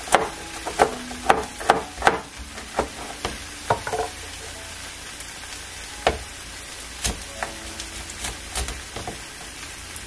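Food frying in a pan with a steady sizzle, while a utensil stirs and knocks against the pan. The knocks come thick in the first four seconds, then fewer, and each leaves a brief metallic ring.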